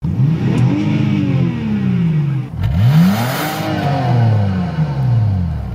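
Car engine revved twice while parked: each rev climbs quickly and then falls slowly back toward idle, the second starting about halfway through.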